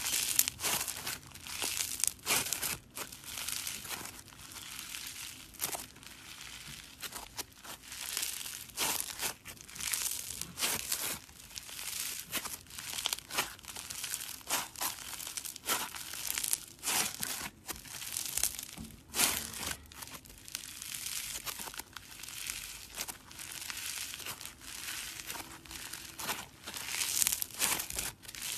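Crunchy slime being worked, crackling and crinkling in quick, irregular crackles that keep coming.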